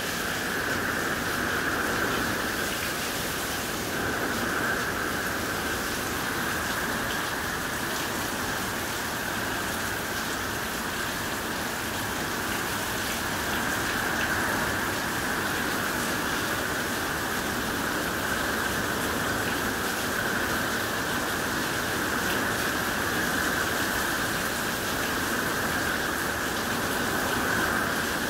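Steady rain from a hurricane's outer band, pouring down without a break.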